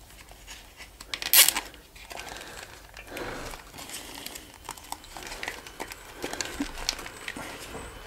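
Rustling and small plastic clicks of a motorcycle wiring loom and its plastic connectors being handled and pushed into place inside a plastic headlight shell, with one short loud rasp about a second and a half in.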